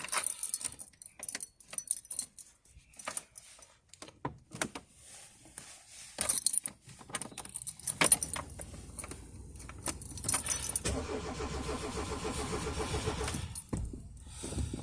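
Keys jangling and clicking at first. Then, about eight seconds in, the Peugeot 205 1.4's starter cranks the engine for roughly five seconds with a steady repeating beat, without it catching: a hard start after months laid up.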